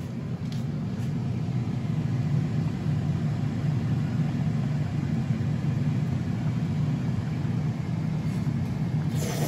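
Steady low rumble of kitchen noise at a gas stove while noodles cook, with a short clatter near the end.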